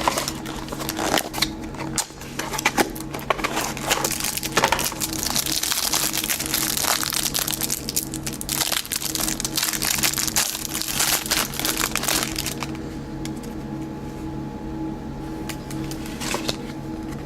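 Trading-card pack wrapper being torn open and crinkled by hand, with sharp crackles and clicks that thicken into steady crinkling and stop suddenly a little after two thirds of the way in.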